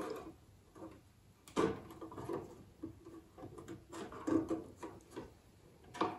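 Hard plastic model-kit deck parts knocking and clicking against the plastic hull as they are positioned and pressed down by hand for a trial fit: a few scattered light knocks.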